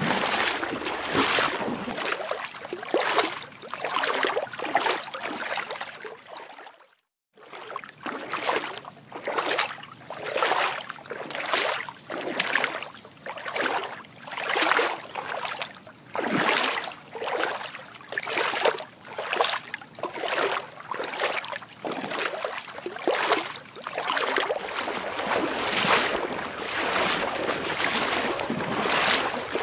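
Water lapping and splashing in rhythmic swells, a little more than one a second, broken by a brief dropout about seven seconds in.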